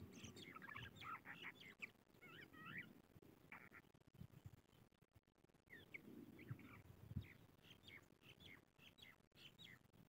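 Crested lark singing faintly: quick, twittering and warbling notes in two runs, with a pause of a second or two just before the middle.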